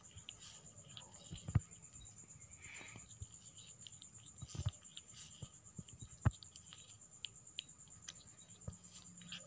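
A kitten grooming itself close to the microphone: soft, irregular clicks of its tongue licking its fur, a couple of them louder, over a faint steady high-pitched whine.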